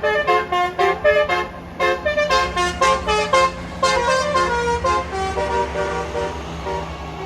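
Bus 'telolet' Basuri multi-tone horn playing a quick tune of short toots, several notes a second at changing pitches, over a steady low engine hum. The notes grow fainter and sparser near the end.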